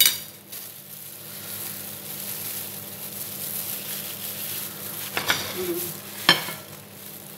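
Rustling and crinkling of disposable plastic gloves and samosa pastry as chicken filling is wrapped, over a steady hiss, with a sharp click at the start and two more about five and six seconds in.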